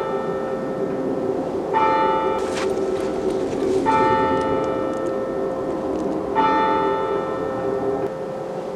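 A bell tolling three times, a couple of seconds apart, each stroke ringing on and fading, over a steady sustained drone: an eerie horror soundtrack.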